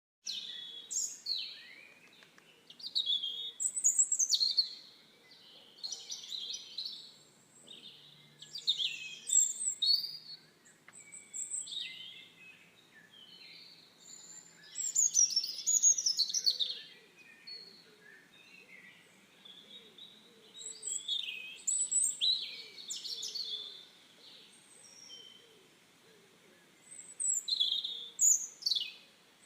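Songbirds singing and chirping: quick, varied high-pitched phrases with fast sweeps in pitch, one cluster after another with short pauses between.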